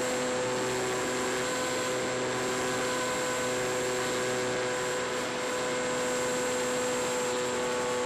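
Steady whine of a Skywalker FPV plane's electric motor and propeller at constant throttle, over a constant airy hiss.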